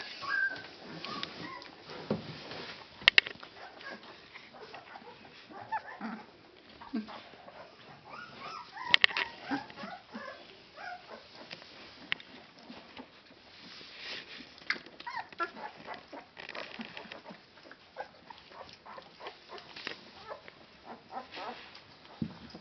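13-day-old Leonberger puppies squeaking and whimpering in many short, high cries as they crawl and nurse against their mother. Two sharp clicks, about three and nine seconds in, are the loudest sounds.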